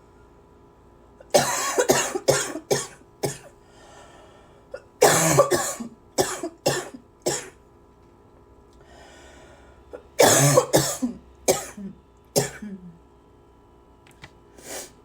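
A person coughing in three fits of about five coughs each, with a long breath between fits.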